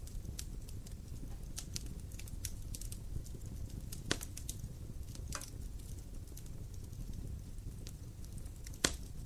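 Wood fire crackling: a steady low rumble of burning with irregular sharp ticks and a few louder pops, one about four seconds in and one near the end.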